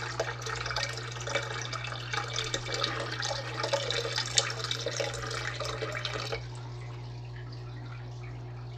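Water poured from a jug into a partly filled tank, splashing steadily until it stops about six seconds in. A steady low hum runs underneath.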